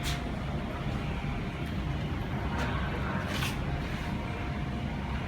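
Steady low background rumble with a faint hum, broken by a few short hisses.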